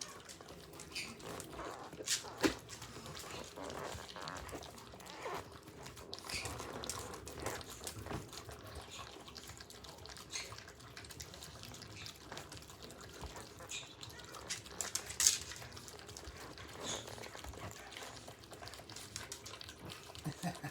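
Dogs licking rubber lick mats smeared with salmon paste: faint, irregular wet licking with scattered small clicks, and a sharper click about two seconds in and again about fifteen seconds in.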